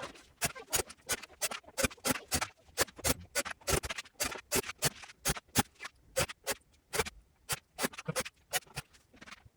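A rapid, irregular run of sharp clicks and light taps, about three or four a second, like small parts and tools being handled during work on a mixer.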